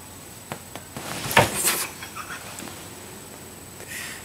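A sudden loud thump with rustling about a second in, after a couple of faint clicks.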